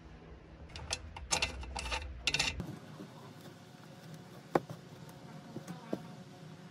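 Handling noise of a fuel line fitting and rubber hose: a few bursts of scraping and rustling in the first couple of seconds, then scattered sharp clicks, one louder about four and a half seconds in, over a low steady hum.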